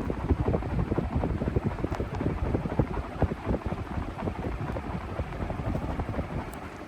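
GEC Loyal ceiling fan running, its downdraft buffeting the microphone in rapid, uneven low thumps over the hum of the air. The buffeting eases off near the end.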